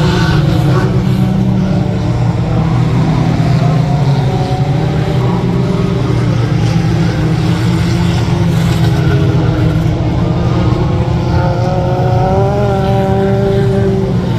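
Engines of small pickup trucks racing in a mini truck race, a loud steady drone of several motors. Near the end one engine's pitch climbs and falls as it revs.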